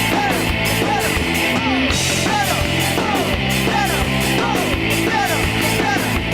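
Rock music with a driving beat, distorted guitar and drums.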